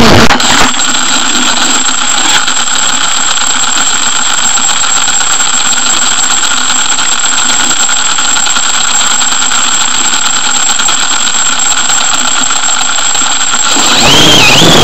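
Multicopter motors and propellers running, cut off abruptly a moment in as the FPV quadcopter comes down in the grass. A steady hiss with a constant high whine follows while it lies there, and near the end the motors spin up again with a wavering whine.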